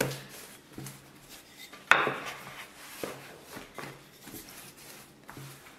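Wooden rolling pin working a sheet of bread dough on a floured wooden board: soft rolling and rubbing with a few knocks of wood on wood. The loudest knock comes about two seconds in.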